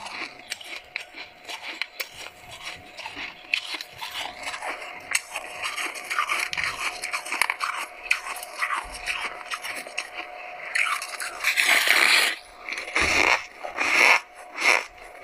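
Packed white freezer frost crunching and scraping: many quick, soft, crackly crunches, with louder, denser crunching near the end.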